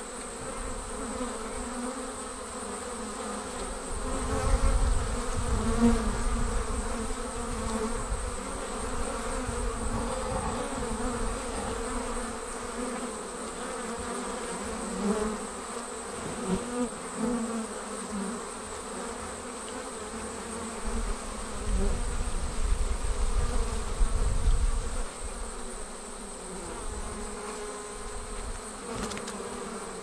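A honey bee swarm hanging in a cluster, thousands of bees making a steady, even buzzing hum. Low rumbles come in briefly about four seconds in and again from about twenty-one to twenty-five seconds.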